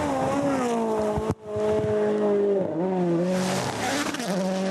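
Rally car engine running hard at high revs, its pitch falling and dipping with lifts and gear changes, then picking back up. The sound cuts out sharply for a moment about a second in.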